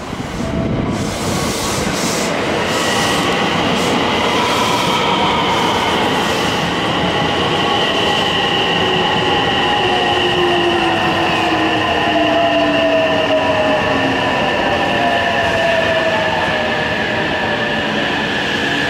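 Kuroshio limited express electric train pulling in and slowing at the platform. Its wheels clatter over rail joints in the first few seconds. Under a steady rumble there is a whine that falls slowly in pitch and a steady high squeal.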